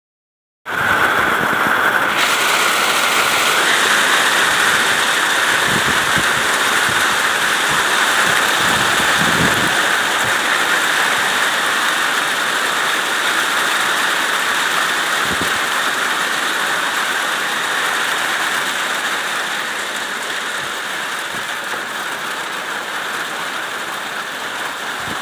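Hailstorm: hail falling and striking surfaces in a dense, steady rush that starts abruptly about a second in and eases slightly near the end.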